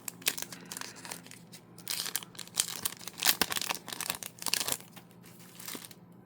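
Trading-card packaging crinkling and tearing as cards are unwrapped, in a dense crackling flurry from about two seconds in until nearly five seconds.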